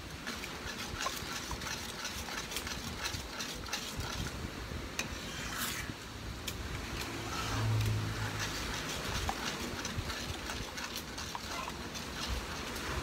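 Metal spoon stirring a thick sweet syrup in a metal pan, with scattered clicks and scrapes against the pan. A short low hum comes in a little past halfway.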